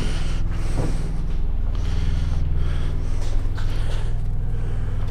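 Steady low mechanical drone, like an idling engine, with breathing close to the microphone and a few light knocks and rustles as moving blankets are handled and counted inside an empty trailer.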